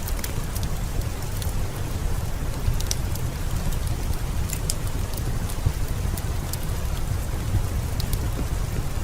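Heavy rain falling steadily, with a deep low rumble under it and scattered sharp clicks and crackles over the top.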